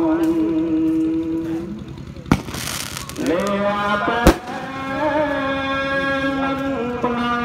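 A firework goes off: a sharp crack about two seconds in, a brief hissing rush, then a louder bang about two seconds later. Behind it a long-held, wavering chant goes on.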